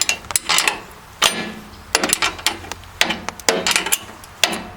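Hand tools clinking and knocking against the steel bolts and mount of a band sawmill's blade wheel, as a wrench works at the adjusting bolts: a dozen or so sharp, irregular metal clanks.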